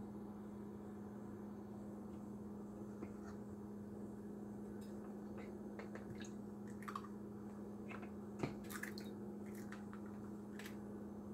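Eggs cracked and their shells pulled apart over a bowl, the contents dropping in: a few faint taps and wet squishy drips, the sharpest tap about eight and a half seconds in. A steady low hum runs underneath.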